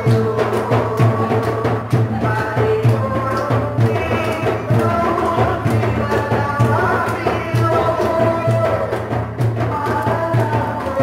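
Sarawak Malay bermukun music: a man singing through a microphone and amplifier over a steady, regular drum beat.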